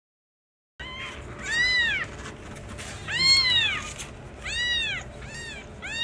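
Young kittens mewing: about five high-pitched mews, each rising then falling in pitch, starting about a second in.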